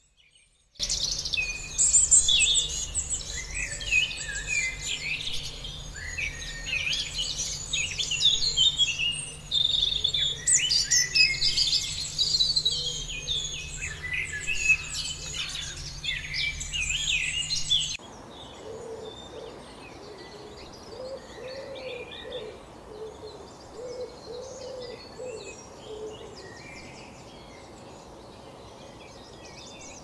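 Many small birds chirping and trilling densely and loudly, starting about a second in. At about 18 s the sound cuts abruptly to a quieter stretch of low, repeated cooing or hooting phrases with faint chirps in the background.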